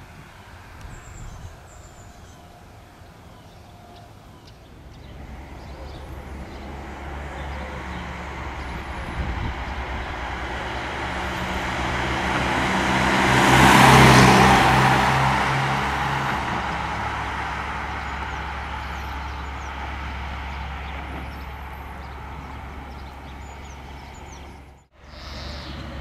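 A car drives past close by, its engine and tyre noise swelling to a peak about halfway through and then fading away.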